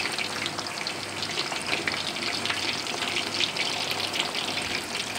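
Chicken leg pieces deep-frying in hot oil in a kadhai: a steady, dense crackle and sizzle of bubbling oil. The pieces are being turned over in the oil with a spatula.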